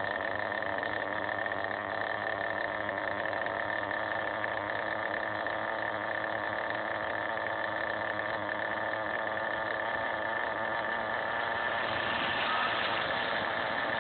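HPI Bullet 3.0 nitro monster truck's .18-size glow engine idling steadily while the truck stands still.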